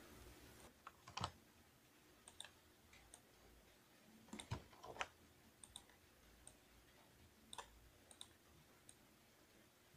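Faint computer mouse and keyboard clicks, about a dozen short clicks scattered irregularly.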